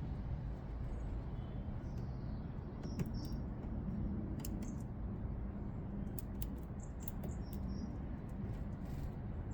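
Small garden birds giving short, high, thin chirps, mixed with sharp little clicks, over a steady low hum of distant traffic.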